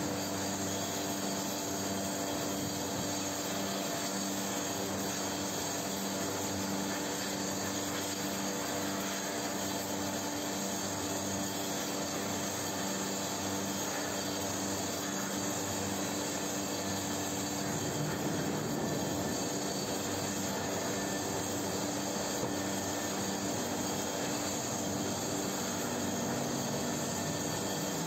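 Steady industrial roar and hiss of steel-casting machinery over molten steel, with a constant low machine hum underneath. The low rumble thickens slightly about eighteen seconds in.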